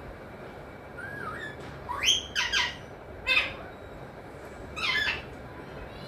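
Alexandrine parakeet calling: a soft whistled chirp about a second in, then a run of short, harsh squawks, a quick cluster around two seconds in, another a second later and one more near the end.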